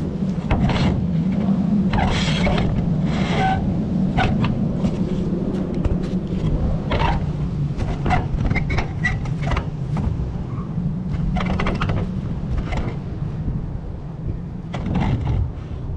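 Scattered scrapes and clicks as a Toyota Prius headlight assembly, sprayed with WD-40, is slid and pushed back into its mounting, over a steady low rumble.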